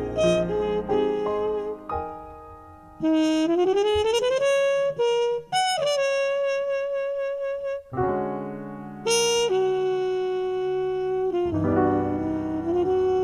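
Jazz recording: saxophone playing long held notes over piano chords and bass, with a rising glide a few seconds in.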